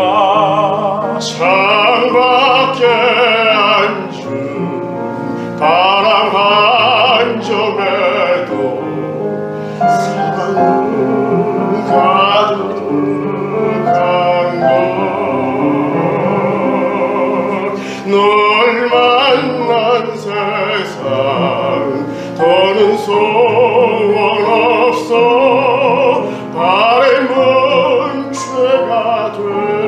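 A female and a male classical singer performing a duet in operatic style with strong vibrato, accompanied by piano.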